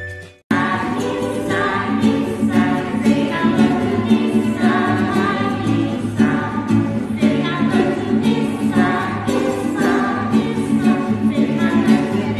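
Acoustic guitar strummed in a steady rhythm, with voices singing along. It starts after a brief break about half a second in.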